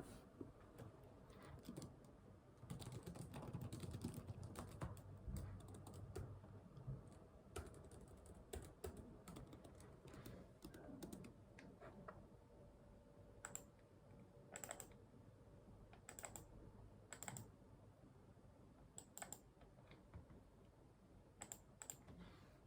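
Faint typing on a computer keyboard: uneven runs of quick keystrokes, busiest in the first third, then thinning to scattered single clicks.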